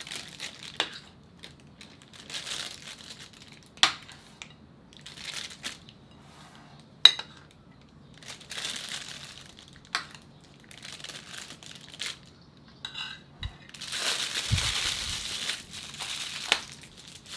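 Disposable plastic piping bag crinkling and rustling in bursts as it is handled and filled with lemon cream, with a few sharp clicks and a longer, louder stretch of crinkling near the end.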